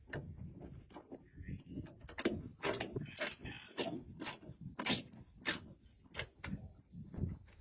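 Irregular metallic clicks and knocks of a hand tool and metal parts at the hood hinge as a hood gas-strut mount is fitted, about one or two sharp clicks a second.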